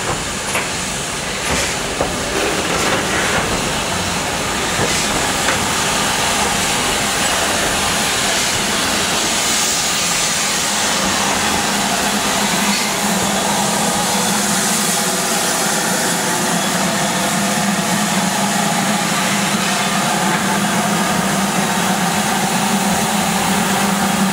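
Steady hiss of steam from a standing LMS Black Five steam locomotive, No. 44767, with a steady low hum coming in about halfway through. A few sharp clicks sound in the first few seconds.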